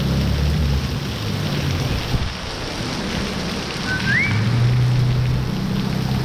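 Heavy tropical-storm rain pouring down, an even hiss with a low rumble under it. About four seconds in there is one short rising whistle.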